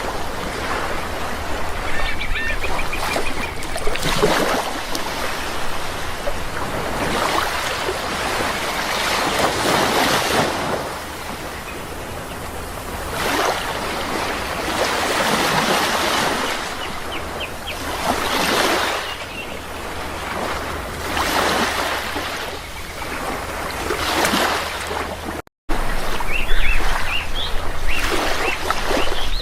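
Sea waves washing in and drawing back in repeated surges every few seconds, with birds calling now and then above them. A split-second gap in the sound comes near the end, after which the surf is louder.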